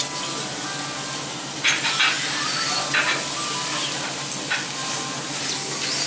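Food sizzling on a hot teppanyaki iron griddle, a steady frying hiss. A few short, sharp metal spatula scrapes against the plate stand out, about two, three and four and a half seconds in.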